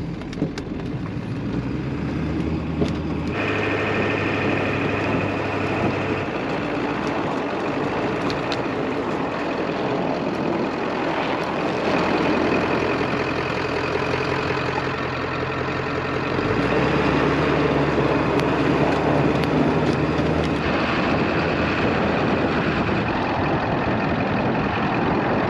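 1996 Ford F350's 7.3 Power Stroke turbo-diesel V8 running at road speed, with steady road and tyre noise. The engine drone shifts in pitch about three seconds in and again around seventeen seconds.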